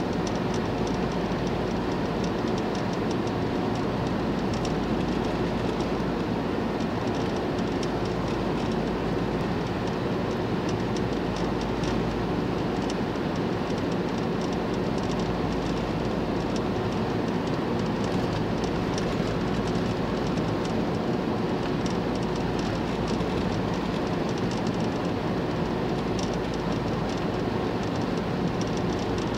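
Steady road and engine noise inside a van's cabin as it drives at speed along a highway, running evenly with a faint hum throughout.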